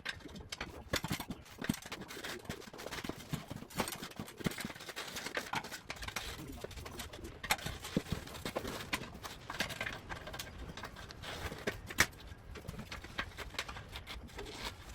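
Steel pry bars (tire irons) clicking and knocking against a dirt bike wheel rim, with rubber scuffing, as the tire bead is levered on by hand in an irregular run of knocks; one sharper knock comes about twelve seconds in.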